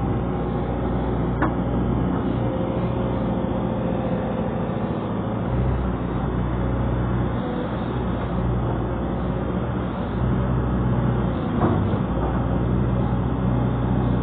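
Excavator engine running steadily, with two brief knocks, one about a second in and one late on.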